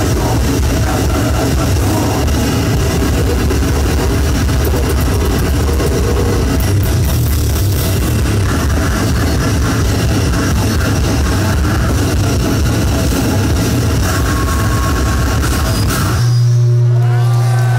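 Live band of electric guitar and drum kit playing loud, dense heavy rock. About sixteen seconds in the full playing stops abruptly and one loud low note is held, with wavering, bending tones ringing above it.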